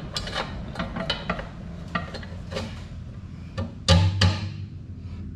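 Metal clinks and clanks from the steel front bar and fittings of a Gianni Ferrari 3x1 Plus flail mower deck being handled: a scatter of light knocks, with two louder clanks about four seconds in.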